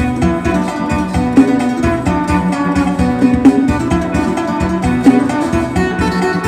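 Isan phin, the plucked lute of northeast Thailand, playing a fast lam sing melody: quick runs of plucked notes over sustained low tones.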